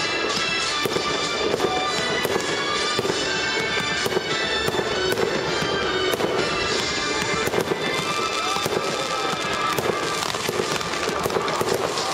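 Aerial fireworks display: shells bursting overhead in a dense, continuous stream of pops and crackles.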